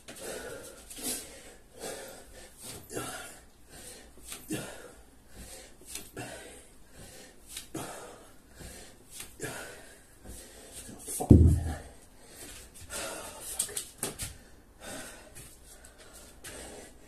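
A man breathing hard and wheezing, about one breath a second, out of breath from a long set of burpees and kettlebell swings. One loud thud about eleven seconds in.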